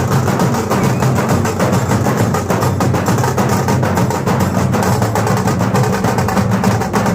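Loud drum-led music with fast, steady beats.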